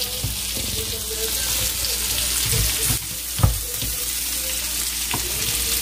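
Green beans frying in a pan on the stove, sizzling steadily, with a knock about three and a half seconds in as a knife and carving fork work through a roast chicken on a wooden cutting board.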